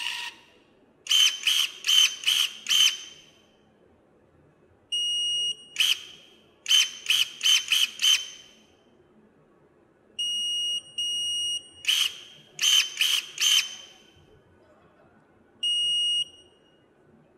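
Anova TPB2502 battery pruning shears working their motor-driven blade, snapping shut and open in quick runs of four or five strokes. Short electronic beeps from the tool mark the settings: one beep, then two beeps with the change of cutting mode, and a single beep near the end as it switches off.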